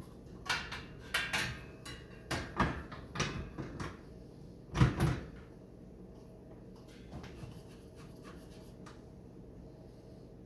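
Knocks and clicks of a bicycle wheel and tools being handled on a workbench, several in the first few seconds and the loudest about five seconds in, then faint handling noise.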